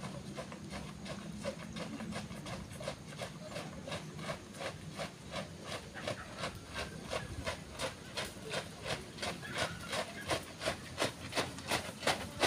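Footsteps of a group jogging in step on a sandy dirt path, a regular beat of about three steps a second that grows louder as the runners come closer.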